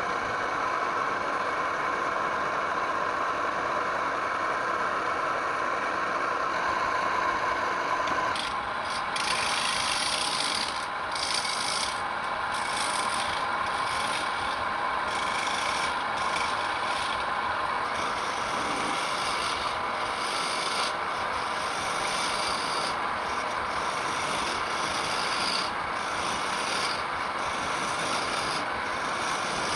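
Wood turning on a lathe: a hand tool scraping and rasping against the spinning wood in a steady run. From about eight seconds in, a hiss swells and fades about once a second as the tool is worked back and forth.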